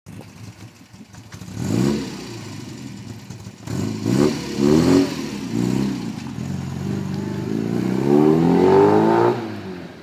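Classic Mini Cooper's A-series four-cylinder engine revving up in several rising pulls with dips between them. The longest and loudest rise comes near the end, then the engine drops away.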